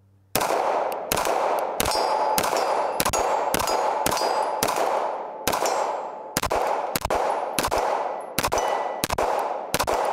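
9mm CZ Shadow 2 Compact OR pistol firing a steady string of about fifteen shots, roughly one every two-thirds of a second, each shot followed by a short decaying ring.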